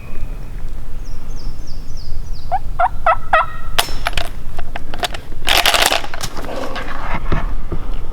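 A wild turkey gobbling: a quick rattling run of notes about two and a half seconds in. A sharp snap follows, the shotgun misfiring when the shell fails to go off, then clicks and rustling as the gun is worked again.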